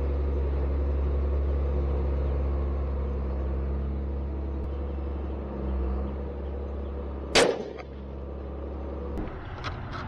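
A steady low machine hum, then a single sharp .17 HMR rifle shot a little past seven seconds in.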